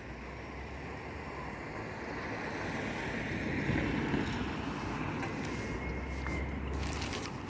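A vehicle passing on the road: tyre and engine noise swells to a peak about halfway through, then eases off, with low wind rumble on the microphone underneath.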